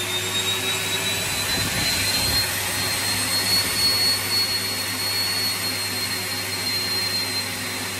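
Corded electric leaf blower's AC motor running flat out while over-volted through a variac: a steady rush of air with a high motor whine that climbs over the first few seconds, then holds and eases off slightly near the end.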